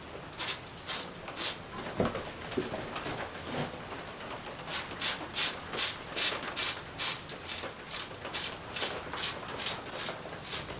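Spray bottle of sugar syrup being pumped onto a package of bees, each squeeze a short hiss of spray: three spritzes near the start, then after a pause a steady run of about two to three a second.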